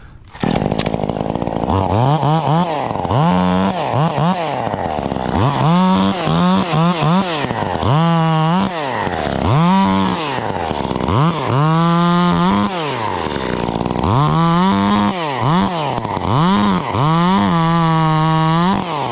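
Small two-stroke top-handle chainsaw revving up and dropping back again and again in short bursts, as when trimming limbs with quick cuts.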